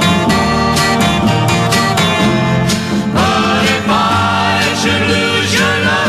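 Background music: a country-style acoustic guitar arrangement, with a wavering melody line entering about halfway through.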